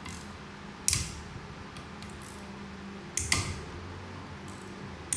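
Hand tool working the bolts of a Mercedes 722.9 7G-Tronic transmission valve body as it is taken apart: a few sharp metallic clicks and scrapes, one about a second in and a pair just past three seconds, over a steady low hum.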